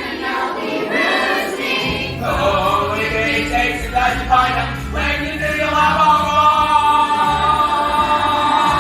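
A chorus of voices singing a musical-theatre song over backing music, settling into a long held chord about halfway through.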